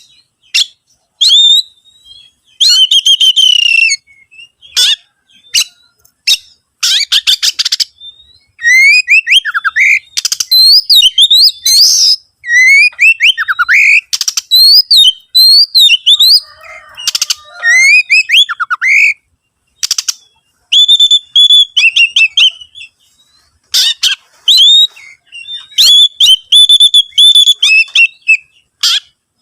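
Oriental magpie-robin (kacer) in full song: short, loud phrases of whistled notes sliding up and down, broken by bursts of rapid rattling clicks, with brief pauses between phrases.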